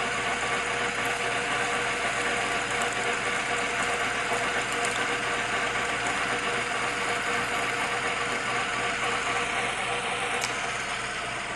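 Lathe running steadily with a steady hum, its cutting tool taking the last depth of cut on an inner turning; the sound eases slightly near the end.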